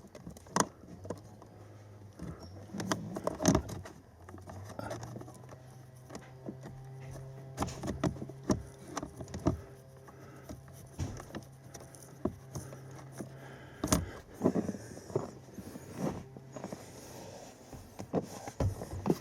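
Scattered small clicks, taps and scrapes of hand work as a bolt is threaded by hand into the plastic housing of a replacement blower motor under a Toyota Sequoia's dash. A low steady hum runs from about four seconds in until about sixteen seconds.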